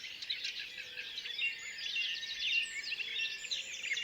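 A dense chorus of many small birds chirping and twittering at once, with quick rising and falling calls overlapping continuously.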